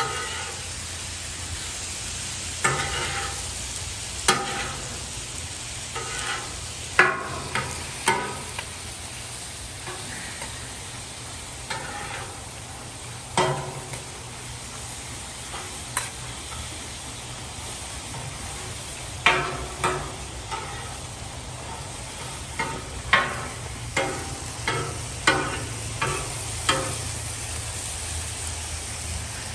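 Thin-sliced ribeye steak and onions sizzling on a flat-top griddle, with a metal spatula chopping and scraping against the griddle in irregular sharp clacks, thickest in the second half.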